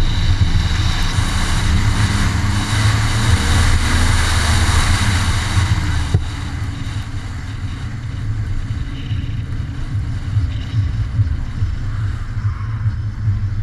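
2002 Lexus IS300's inline-six with a new cat-back exhaust, heard from inside the car, running loud under throttle through the end of an autocross run. About six seconds in it eases off and runs quieter as the car slows.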